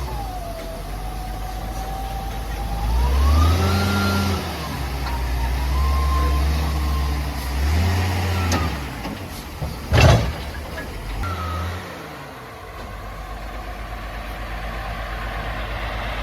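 Heavy truck engine running and revving up and down several times, with one sharp bang about ten seconds in.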